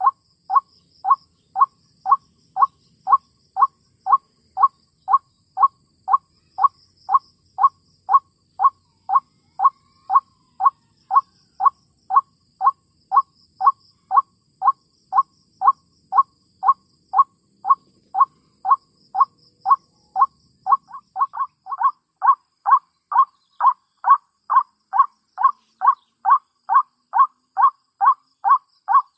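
White-breasted waterhen (ruak-ruak) calls: short notes repeated at an even pace of about two a second. About two-thirds of the way in, a second overlapping series of calls joins and the calling grows louder.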